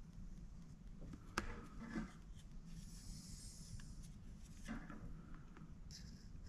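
Faint scraping and rubbing of a fine paintbrush and a straightedge being worked across a painting, with a sharp knock about a second and a half in and a few short hissy strokes, over a low steady hum.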